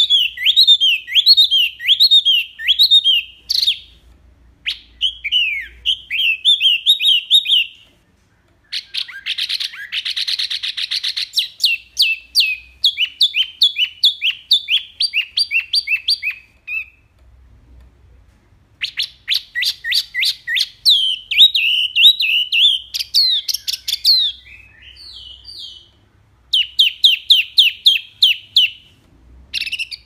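Caged wambi mini songbird singing in loud, clear phrases of rapid, sharp, falling notes, with a harsh buzzy stretch about nine seconds in and short pauses between phrases.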